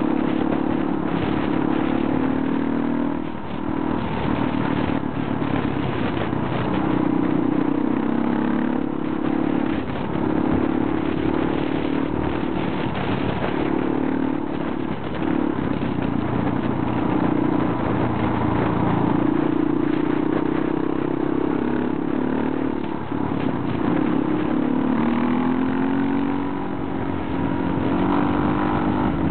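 Motorcycle engine running under way on a gravel road, its pitch rising and falling with the throttle and easing off briefly a couple of times. Steady wind and road noise run underneath.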